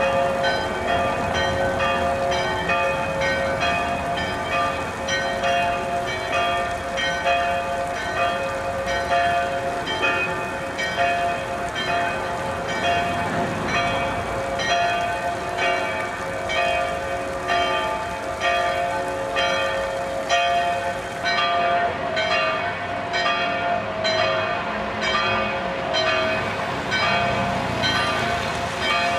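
Church bells ringing in a continuous, even peal of about two strikes a second, their hum ringing on underneath at the same pitches.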